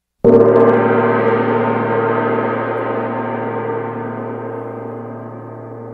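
A single struck, ringing tone with many overtones, hit once and slowly dying away. It is a sound effect laid in between sections of the edit.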